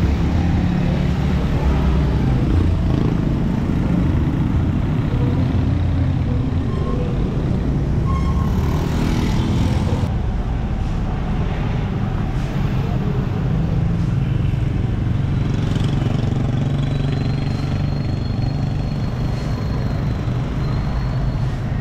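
Street traffic: engines of motorcycles, motor-tricycles and cars running past in a steady low drone, with one vehicle passing close about nine seconds in.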